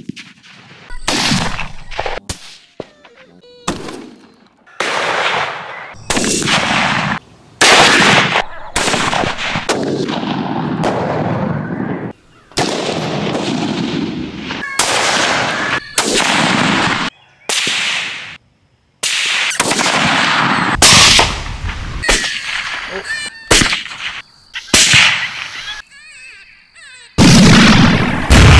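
Rifle shots, one after another, some twenty of them: each sharp report trails off briefly, and several are cut off suddenly before the next.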